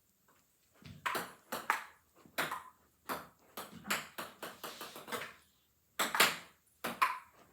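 Table tennis paddles hitting a cat toy ball used in place of a ping pong ball, with table bounces in between: a quick run of sharp hits and bounces, often in pairs, starting about a second in.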